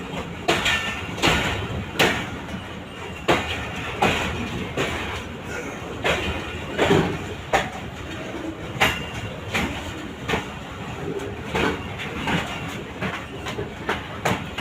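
Moving passenger train running along the track: a steady rumble with repeated sharp clacks of the wheels over the rail joints.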